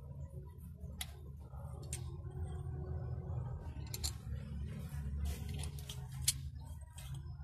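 Metal-on-metal clinks and clicks from a wrench and valve-train parts being handled on a diesel engine's cylinder head: single clicks about a second and two seconds in, then a quicker cluster of clinks around the five- to six-second mark, over a low steady hum.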